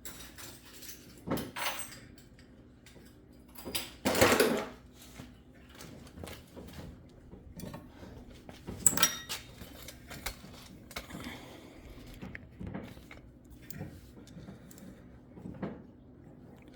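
Scattered metal clinks, taps and scrapes of tools and small parts while the oil filter cover and filter are worked out of a Suzuki LTZ400 quad's engine. A louder scraping rustle comes about four seconds in and a sharp ringing clink near nine seconds.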